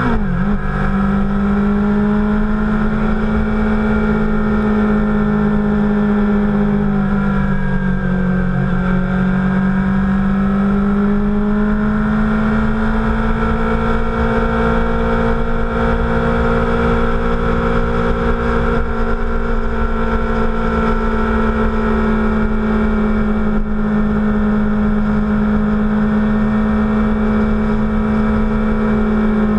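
Sport motorcycle's engine running steadily at cruising speed, with wind noise. The engine pitch steps down right at the start, dips and climbs back about eight seconds in, then holds steady.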